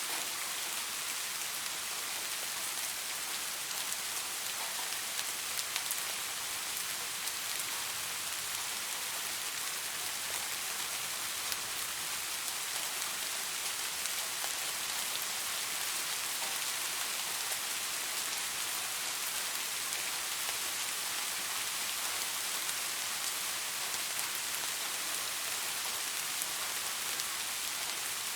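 Steady rain falling on leaves: an even hiss with a few sharper individual drop ticks now and then.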